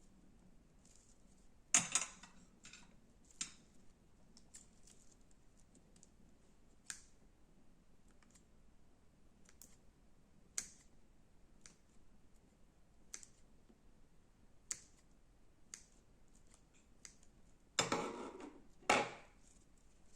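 Slime being handled: sparse small clicks and sticky pops, with a louder crackle about two seconds in and two more near the end.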